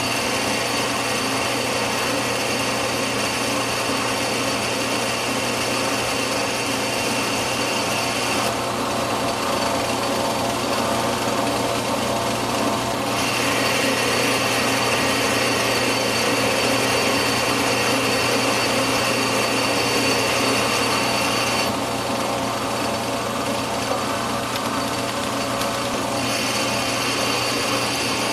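Metal lathe running with a steady motor hum while the tool turns down a section of a small steel stud. The hiss of the cut drops away twice, about 8 seconds in and again around 22 seconds, and comes back a few seconds later each time.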